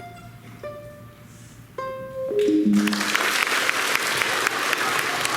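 The last few notes of an instrumental piece: single sustained notes, then a short falling run down to a low final note. The audience breaks into applause almost as the last note sounds and keeps clapping.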